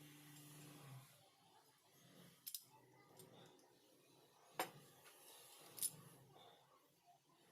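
Near silence broken by a few sharp clicks: a pair about two and a half seconds in, and louder single ones at about four and a half and six seconds. A faint low hum fades out in the first second.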